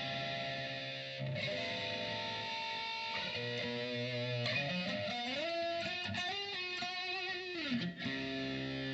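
Distorted electric guitar played through a STRICH analog flanger pedal. It holds chords at first, then plays a lead line of sliding, bent notes with vibrato in the middle, and ends on another held chord.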